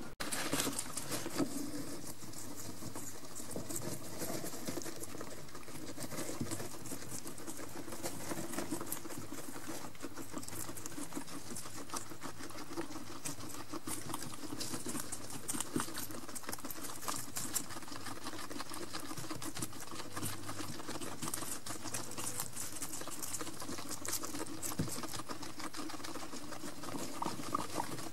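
Guinea pigs chewing pieces of cucumber and shuffling through wood-shavings bedding: a steady run of small crunching and rustling clicks.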